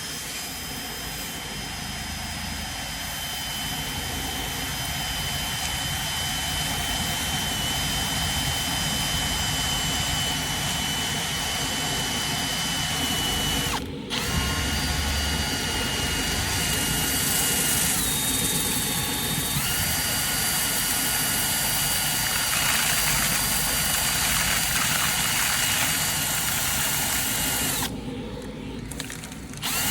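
Drill-driven rotary brush spinning inside a dryer vent duct: a steady motor whine over a rushing noise. It cuts out for a moment about halfway through and for a second or two near the end, and the whine shifts in pitch for a few seconds after the first break.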